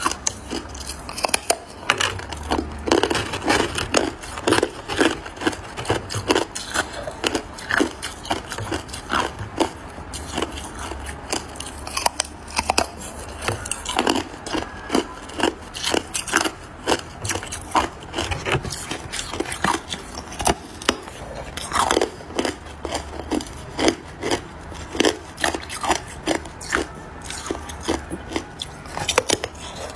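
A large block of hard, clear ice being bitten and crunched between the teeth: a dense, irregular run of sharp cracks and crunches, several a second.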